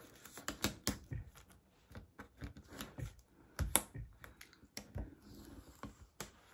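Cricut weeding hook picking and scraping at cut vinyl on its backing sheet: a string of irregular small clicks, taps and scratches, the loudest a little under four seconds in.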